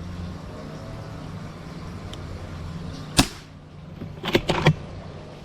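FX Impact M3 PCP air rifle firing once, a single sharp crack about three seconds in, followed about a second later by a quick cluster of sharp clicks.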